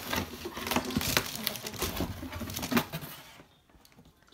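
Clear plastic packaging crinkling and rustling as it is handled, with a scatter of sharp clicks, for about three seconds before it stops.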